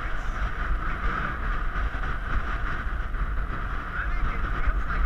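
Wind buffeting the microphone, a steady rumbling rush with a constant hiss on top.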